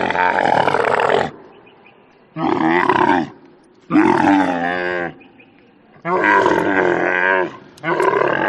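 A large animal calling loudly again and again: five pitched, roar-like calls of about a second each, with short pauses between them.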